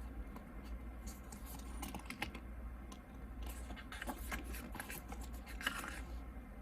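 Paper rustling and light scraping as the pages of a K-pop album photobook are handled and turned, in a few short scattered bursts.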